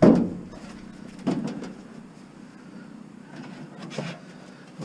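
Sheet-metal air duct knocking and clanking against the scrap in the back of a loaded van as it is shoved in: a loud bang at the start, another just over a second later, and a lighter knock near the end.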